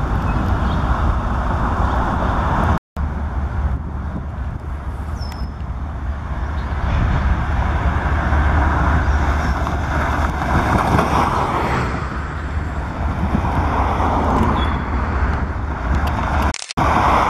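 Diesel locomotives of an approaching freight train running with a steady low rumble that grows louder from about halfway through. There is a brief break in the sound about three seconds in and another near the end.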